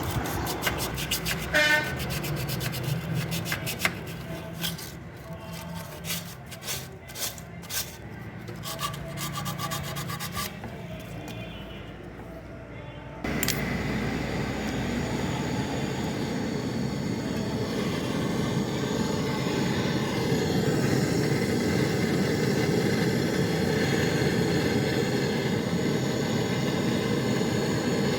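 Emery cloth rubbing back and forth on the fridge's copper refrigerant pipe, cleaning it for brazing. About halfway through, a gas welding torch comes on suddenly and runs with a steady, loud hiss.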